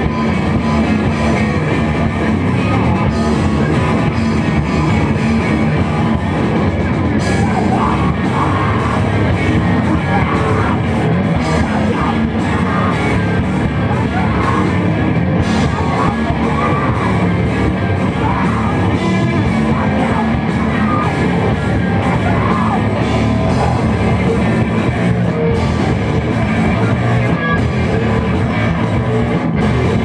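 Rock band playing live: guitars and drums at a steady loud level, with a singer yelling and singing over them.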